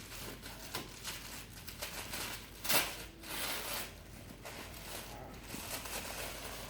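Packaging being crinkled and torn open by hand: a string of short rustles, with one louder rustle a little before the middle.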